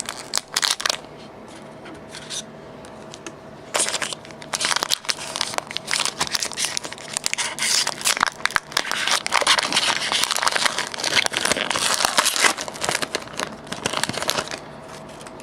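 Foil booster-pack wrapper of a Pokémon trading card pack being torn open and crinkled: a few short clicks at first, then dense rustling and crackling from about four seconds in until near the end.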